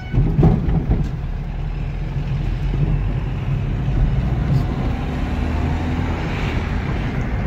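Car engine and road noise heard from inside the cabin while driving, a steady low rumble, with a few short knocks or rattles within the first second.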